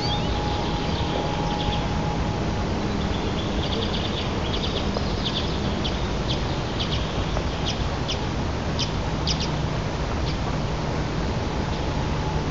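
A steady background hiss with a run of short, high bird calls, strongest from about four to ten seconds in.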